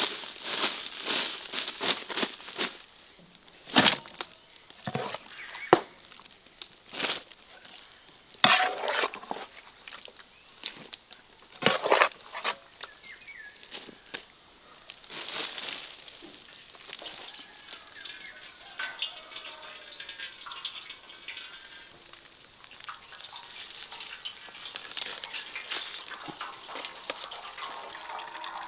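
Irregular sharp knocks and clatter with crackling, about half a dozen strong knocks in the first half, then softer, steadier rustling.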